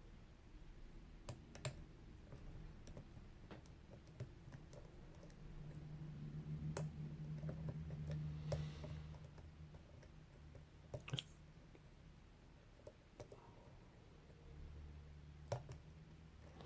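Faint, scattered clicks of a lock pick working the pin tumblers of a Lockwood 334C45 padlock under light tension from a music-wire tension tool, as the pins are lifted and set one by one. A low hum joins in for a few seconds in the middle.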